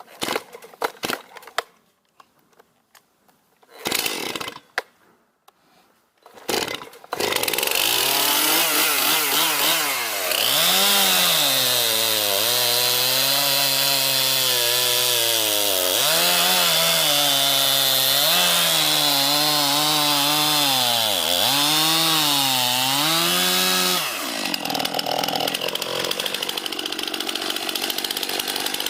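Chainsaw giving a few short bursts, then running steadily from about seven seconds in, its pitch dipping and recovering again and again as it cuts through wood under load.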